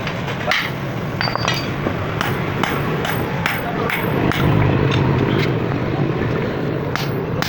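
Blacksmith's hammer striking a hot iron rod on an anvil as it is bent into an L shape: a run of sharp metallic blows, about two a second at first and more spaced out later, over a steady low background hum.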